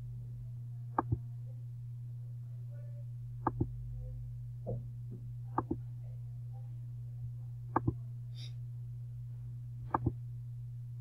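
Computer mouse button clicked five times, roughly every two seconds, each a quick pair of clicks, over a steady low hum.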